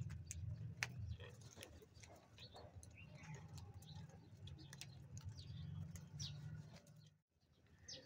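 Faint sharp ticks of house crows' beaks pecking grain in a plastic bowl, with faint bird chirps over a low steady rumble. The rumble drops out briefly about seven seconds in.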